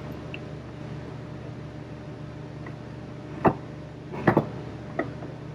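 Steady background hum with a few sharp metal knocks on a baler wheel hub during work to get the bearing races out: one knock, then two close together, then one more in the last couple of seconds.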